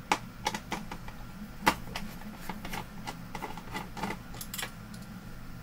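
Irregular small clicks and taps of hands handling wire harnesses and connectors on a monitor's mainboard, with one sharper click near the start and another about a second and a half in, over a steady low hum.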